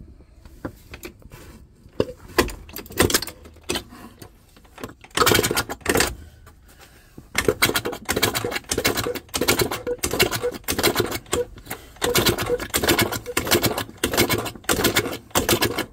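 Rapid, irregular mechanical clicking and rattling, sparse at first, then nearly continuous from about seven seconds in.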